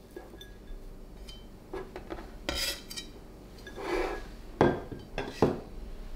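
A cleaver and a white ceramic bowl knocking and clinking as pork shreds are scraped off the blade into the bowl, followed by the bowl being moved across a wooden board and set down. There are a handful of separate short knocks, the sharpest in the second half.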